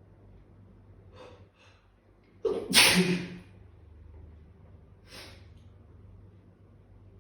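A person sneezing once, loudly, about two and a half seconds in, after two quick in-breaths. A short sharp breath follows about five seconds in.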